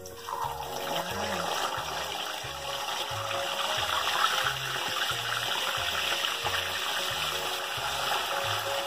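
Salted tilapia sizzling in hot oil in a frying pan: the hiss starts as the fish goes in and grows louder over the first few seconds, then holds steady. A steady low beat of background music runs underneath.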